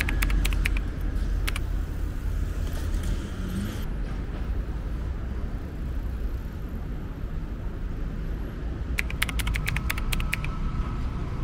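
Steady low rumble of road traffic, with two bursts of rapid sharp clicks, one at the start and one about nine seconds in.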